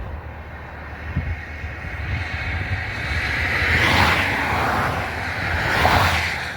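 Wind rumbling on the microphone outdoors, with two rushing swells that build and fade, about four and six seconds in.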